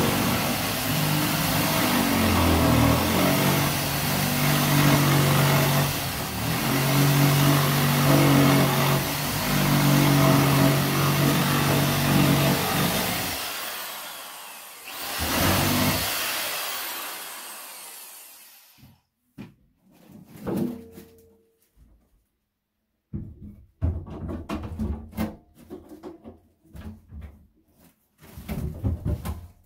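Corded jigsaw cutting through a countertop to enlarge a too-tight sink cutout, its motor note rising and falling with the cut for about thirteen seconds, then a short second run before the motor winds down. Scattered knocks and clunks follow as a double sink is handled and set into the opening.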